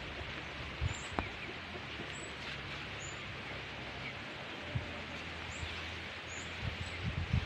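Farmyard ambience with free-ranging chickens: a steady background hiss with short, faint high chirps every second or so and a few soft thumps.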